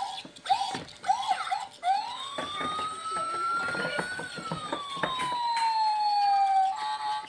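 Electronic siren sound effect from a toy ride-on car's steering-wheel speaker: a quick series of short rising chirps, then one long wail that rises and falls again over several seconds.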